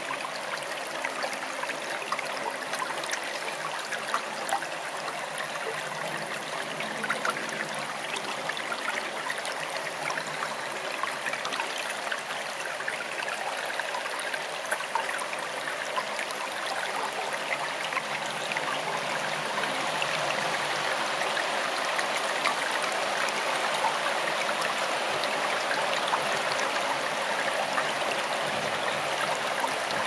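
Forest stream flowing: a steady rush of running water with many small splashes, growing slightly louder about two-thirds of the way through.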